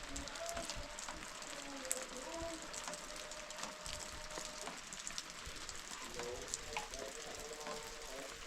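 Rain falling and pattering steadily, a continuous hiss with many small drop ticks.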